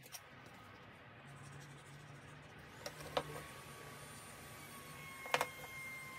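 Small plywood strips and a plastic glue bottle handled on a metal workbench while wood glue is squeezed on: a few light, sharp clicks and knocks, the two loudest about three and five seconds in, over a faint steady hum.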